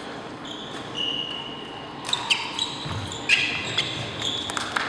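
Badminton players' shoes squeaking on the hall's wooden court floor, with sharp racket hits on the shuttlecock starting about two seconds in as play gets going, in a large echoing hall.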